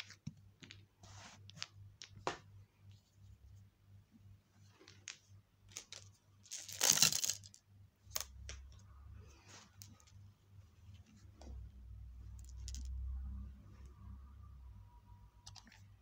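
Pom-pom balls and small glass marbles being handled and tipped out onto a rug: scattered light clicks and rustling, with one loud, brief rustling pour about seven seconds in. The vacuum cleaner is not running.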